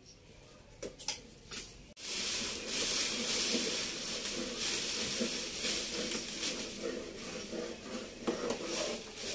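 A long spoon stirring and scraping round a large metal pot of gajrela (carrots cooking in milk) over a wood fire, a steady rubbing, clattering noise that starts suddenly about two seconds in. Before that there are only a few faint clicks.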